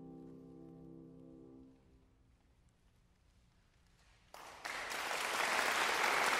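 A grand piano's closing chord fading out, a couple of seconds of hush, then audience applause breaking out about four seconds in and swelling.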